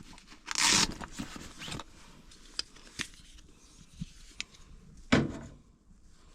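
Handling noises at a heater: a short rustle, a few light clicks, then a thump about five seconds in.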